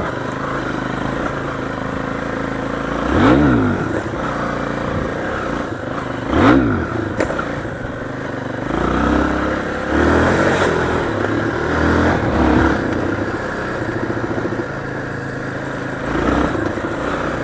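Motorcycle engine running, revved up and back down sharply twice in the first seven seconds, then several smaller revs near the middle and once more near the end.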